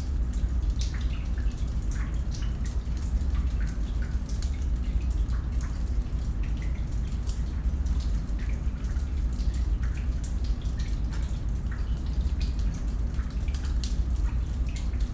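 Water dripping in a cave: scattered drops plinking irregularly over a steady low rumble, ending abruptly.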